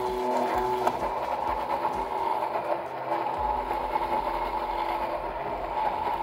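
Handheld immersion blender running steadily in a glass jug, its blade churning a thick mix of ground hazelnuts, milk, cocoa and sugar, with a constant motor whine.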